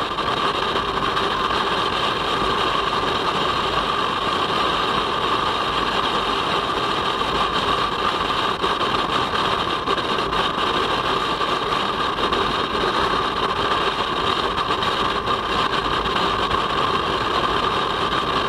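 Kawasaki Versys-X 250's parallel-twin engine running at a steady highway cruise, an even drone with unchanging pitch, mixed with wind and road noise.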